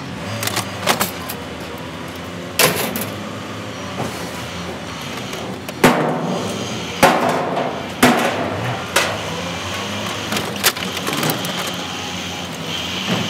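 Irregular sharp knocks and clatters, about nine, as a white plastic appliance casing with wiring is pried and broken apart with a hand tool in a ute's metal tray, over background music.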